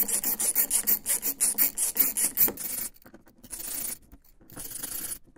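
Hand screwdriver, likely a ratcheting one, backing screws out of a 3D printer's panels: a fast, even rasping click about five or six times a second for the first two and a half seconds, then softer scraping.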